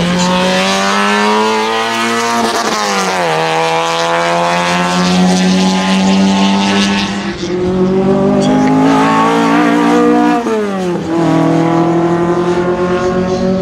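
Alfa Romeo and Fiat saloon race car engines accelerating hard down the straight. The engine note climbs steadily and drops sharply at an upshift about three seconds in, then climbs again to a second upshift near eleven seconds.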